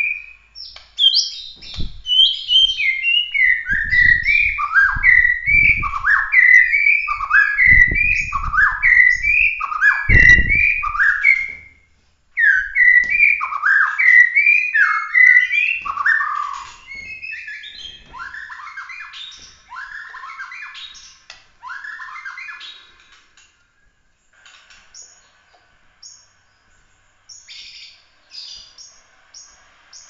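Caged white-rumped shama (murai batu) of the Bahorok strain singing loud, rapid whistled phrases: repeated down-slurred notes about once a second with sharp 'tembakan' burst notes. The song breaks briefly about twelve seconds in, then goes on softer and more scattered through the second half.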